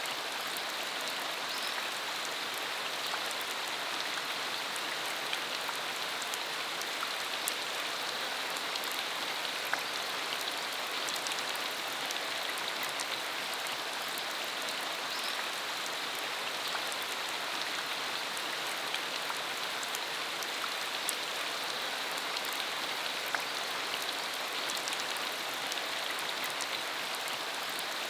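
Steady rain falling on a dirt road: an even hiss of rainfall with many distinct drop ticks scattered through it.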